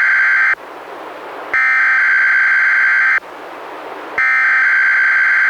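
NOAA Weather Radio SAME header, the raspy digital data burst that opens an Emergency Alert System message, here encoding a Required Weekly Test. It is sent three times, each burst about a second and a half long with about a second's gap between. The first burst ends about half a second in, the second plays whole, and the third starts near the end.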